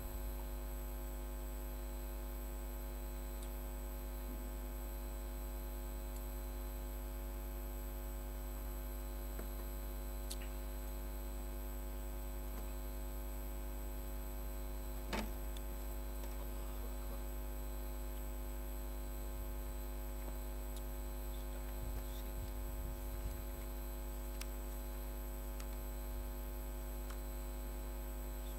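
Steady electrical mains hum, with a single sharp click about halfway through and a few faint ticks.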